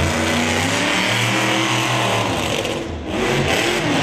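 Monster truck engine running at high revs. It drops off briefly about three seconds in, then revs up again.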